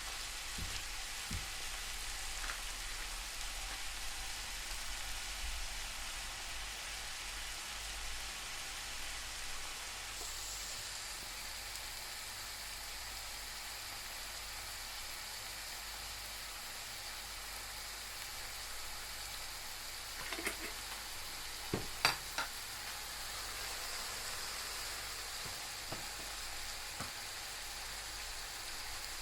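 Beef frying in a pan, a steady sizzle, with a few sharp knocks of a utensil against the pan about two thirds of the way through.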